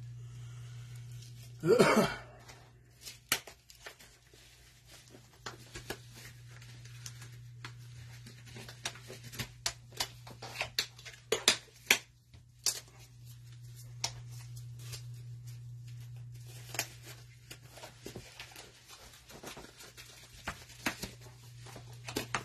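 Many scattered light clicks and taps over a steady low hum. About two seconds in there is one short, loud voice-like sound.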